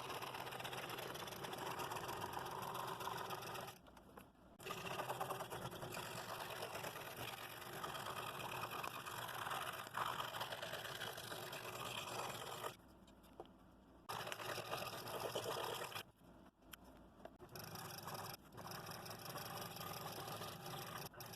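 Scroll saw cutting double-stacked 1/8-inch Baltic birch plywood: a steady, fast-running blade buzz that drops away briefly three times.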